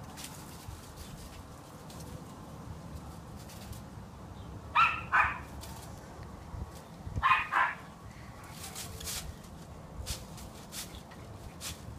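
A miniature schnauzer barks twice in quick pairs, about five seconds in and again two and a half seconds later. They are alert barks at a squirrel.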